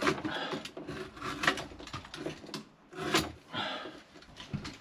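Irregular scraping and rubbing strokes, five or six of them, from an armoured cable being handled and worked after being marked for stripping.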